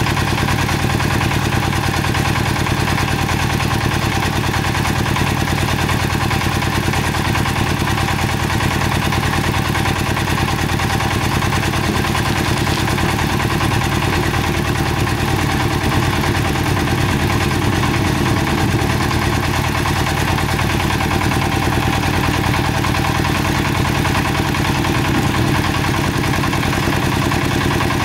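An engine running steadily at an even speed, with a rapid, regular firing beat that does not change.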